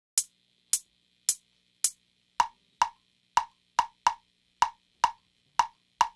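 Solo hand percussion opening a song: four sharp, evenly spaced clicks about half a second apart, then a looser pattern of single strokes, each with a short pitched ring.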